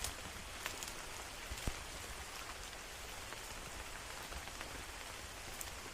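Steady rain falling, an even hiss, with a few sharp taps of drops striking close by about a second in, near two seconds and again near the end.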